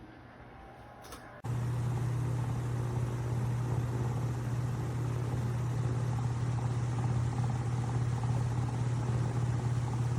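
Comfort Zone 16-inch wall-mount fan running: a steady rush of air with a low hum, cutting in abruptly about a second and a half in.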